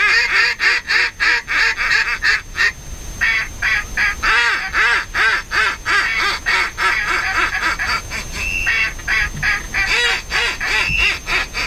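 Duck call blown in long runs of rapid quacks, about four a second. The runs break briefly about three and eight seconds in, and there are a couple of drawn-out higher notes near the end. The calling is meant to draw in passing ducks.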